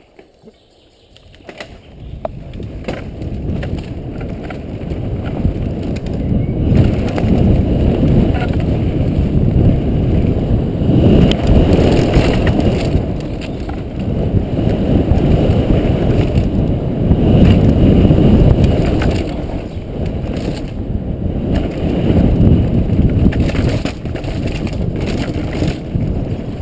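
YT Tues downhill mountain bike ridden fast down a dirt trail, heard from a helmet camera: a loud, muffled rumble of tyres and wind that swells and eases with speed, with clicks and knocks from the bike rattling over bumps. It starts quietly and builds over the first couple of seconds as the bike gets going.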